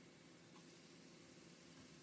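Near silence: a faint steady hiss, with one faint tick about half a second in.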